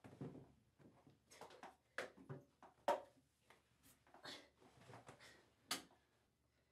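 Quiet, irregular rustling of clothing with soft knocks and clicks against a bathtub as a man's limp body is handled; the two sharpest knocks come about three seconds in and near the end.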